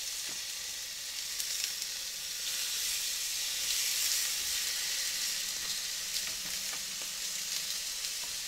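Sausages and bacon frying in oil in a rectangular Boaties frying pan, a steady sizzle, with a few light clicks as the rashers are laid in.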